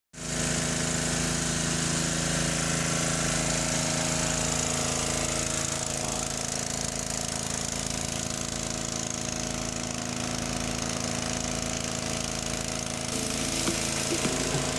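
Small petrol engine converted to run on LPG, running steadily at an even speed.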